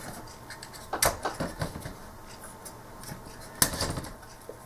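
Handling noise from a bare Amiga A500 3.5-inch floppy drive mechanism being turned over on the bench: a few quick clicks and clatters of its metal and plastic frame about a second in, and one sharper knock about three and a half seconds in.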